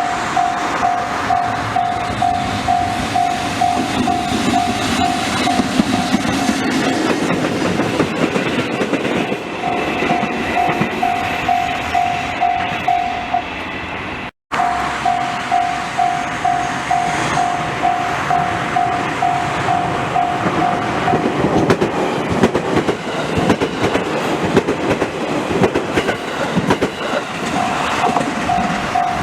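Japanese level-crossing warning bell ringing in a steady run of repeated electronic dings, stopping and starting again a few times, over the rumble and clickety-clack of a passing train.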